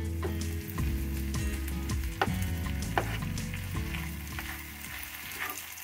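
Sausage and tomato sizzling in a frying pan on a gas hob, with a utensil clicking and scraping against the pan as chopped wild garlic is stirred in.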